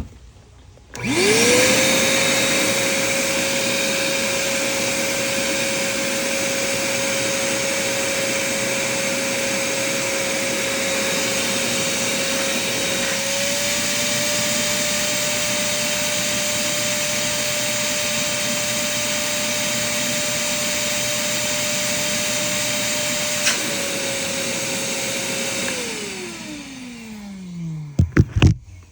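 Craftsman shop vac switched on, its motor spinning up quickly to a steady high whine with a rush of air. About halfway through the pitch steps up slightly and an extra higher tone joins in. It drops back a couple of seconds before the vac is switched off and winds down with a falling pitch.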